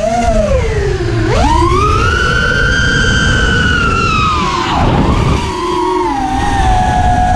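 FPV racing quad's T-Motor F40 Pro V2 2600 KV brushless motors and 5051 props whining at full throttle on 5S. The pitch dips, then rises sharply about a second in and holds high. It falls away around five seconds and settles to a lower, steadier whine, over a low rumble of wind.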